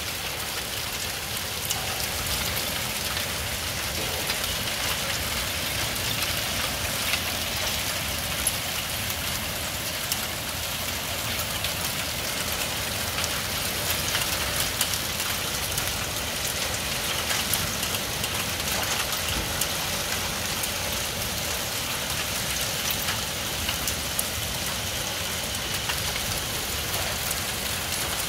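Heavy rain of a thunderstorm falling steadily, with many small sharp taps of drops striking nearby surfaces.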